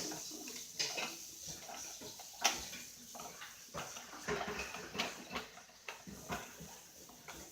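Scattered plastic clicks and knocks, about one a second, from handling a Nerf blaster while foam darts are loaded into its magazine.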